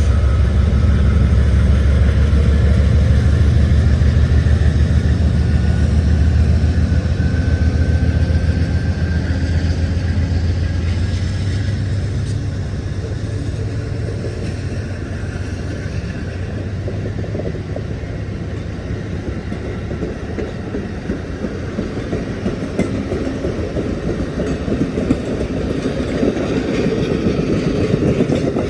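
Amtrak Siemens Charger diesel locomotive running, its low engine rumble loud at first and fading over the first ten seconds or so. Train wheels then roll and click over rail joints, growing louder toward the end.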